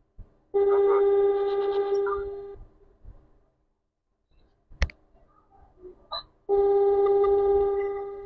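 WhatsApp outgoing-call ringback tone: two steady rings, each about two seconds long and tapering off, about six seconds apart. A single sharp click falls between them.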